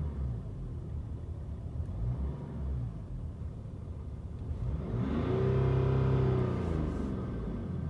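Stock BMW 525d E60's straight-six diesel engine running on its standard exhaust, with short small blips. About five seconds in it is revved once: the pitch climbs, holds for a second, then falls back.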